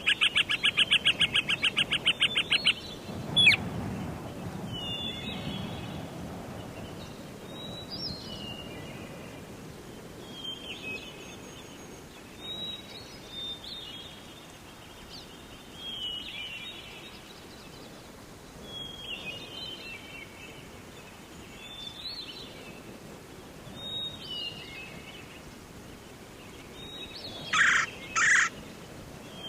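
Wild birds singing: a loud, rapid pulsed trill for the first few seconds, then short warbled song phrases repeated every two to three seconds, with two loud sharp calls near the end.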